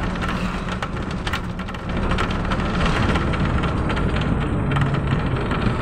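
Running engine and road noise of a vehicle moving along a street: a steady low engine hum under a dense rushing noise, with frequent short clicks throughout.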